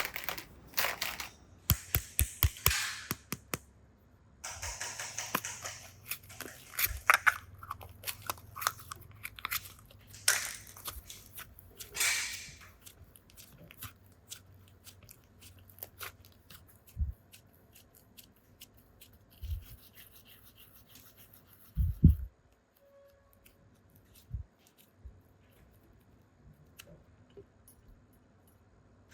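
Plastic toys and packaging being handled: scattered sharp clicks and taps with short bouts of rustling and crinkling, busiest in the first half and growing sparse later.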